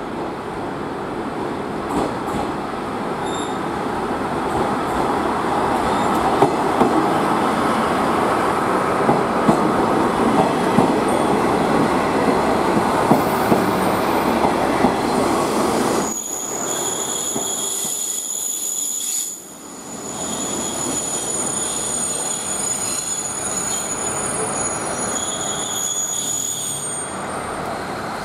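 KiHa 40-series diesel railcars running into a station platform: engine and running noise build up as the train nears, with sharp clicks from the wheels. Then, from just past halfway, a high-pitched squeal of brakes and wheels as the train slows to a stop.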